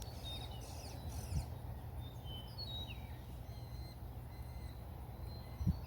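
Birds chirping and calling over a steady low outdoor background, with a soft thump about a second and a half in and another near the end.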